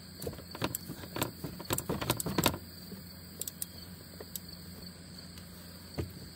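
Ratchet wrench clicking in quick short runs as a bolt is worked loose in a cramped spot, getting only a few clicks per swing, with metal clinks against the frame and a single knock near the end. Crickets chirr steadily behind.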